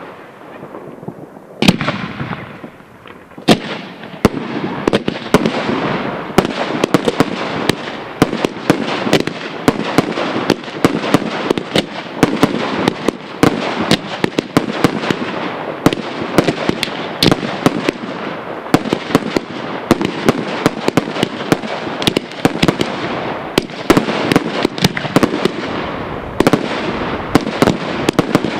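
Fireworks display: a few separate bangs at first, building from about four seconds in to a dense barrage of aerial shells and launches. Sharp explosions follow one another over a continuous crackle.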